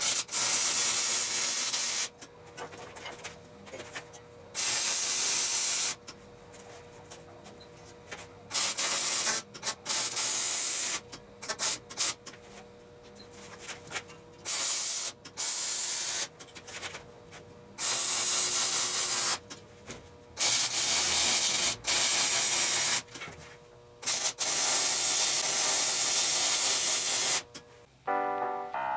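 Electric arc welding of a steel table frame: about a dozen welds of one to three seconds each, a loud sizzling hiss that starts and stops, with a faint steady hum from the welder in between.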